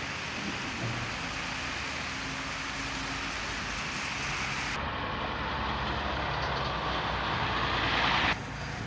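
Hino diesel truck running and travelling over a rough dirt quarry road. A rushing noise grows louder over the second half and cuts off suddenly near the end.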